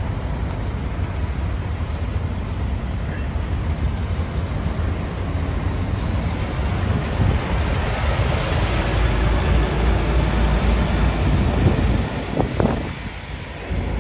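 Diesel tractor-trailer driving slowly past close by. Its engine rumble builds to its loudest in the second half, then eases off near the end.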